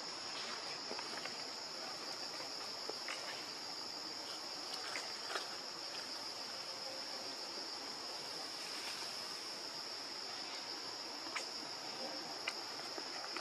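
Steady, unbroken high-pitched drone of insects, cicadas or crickets, with a few faint clicks scattered through it.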